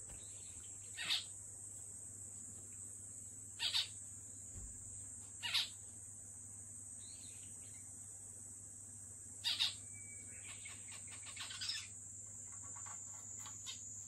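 Zebra finch giving short calls, four louder ones a few seconds apart with fainter ones between, then a quieter run of quick notes about ten seconds in, over a steady high hiss. The owner takes these for the calls of a bird in a good mood.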